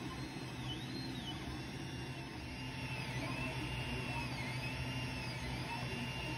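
Ender 3 Pro 3D printer printing: its stepper motors whine in repeated rising-and-falling tones as the print head speeds up and slows down through each move, over the steady hum of its cooling fans.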